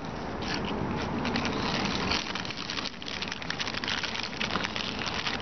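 Snack-chip bags crinkling and Cheetos being crunched: a dense, uneven run of small crackles over a steady low background rumble.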